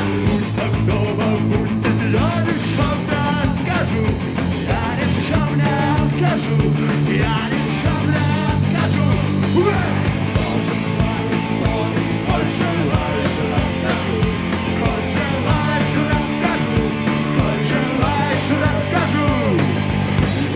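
Live punk rock band playing at full volume: drum kit, bass and distorted electric guitars.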